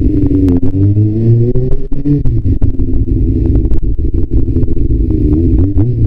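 Kawasaki ZRX400's inline-four motorcycle engine under way. It rises in pitch as the bike accelerates for about two seconds, drops sharply at a gear change, runs steadily, then climbs again near the end. Many short clicks sound over it.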